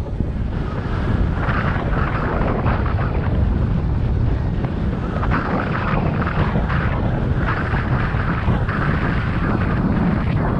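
Wind rushing over the microphone of a camera on a moving bicycle: a steady low rumble with a fluctuating hiss on top.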